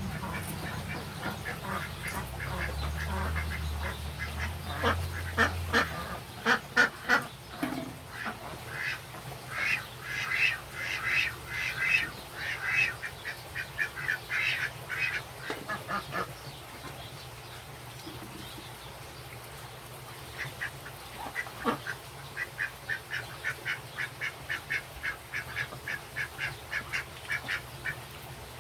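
Birds calling in quick runs of short, repeated notes, about three a second, with a pause in the middle. A low hum fades out about six seconds in.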